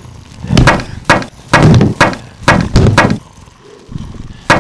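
Foley of heavy blows on wood, like pounding on or boarding up a wooden door: a quick, irregular run of loud thuds for about three seconds, a pause, then another thud at the end.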